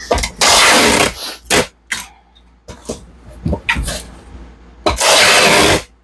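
Packing tape pulled off a tape gun across a box: two long ripping strokes of about a second each, one just after the start and one about five seconds in, with short knocks and clicks between them.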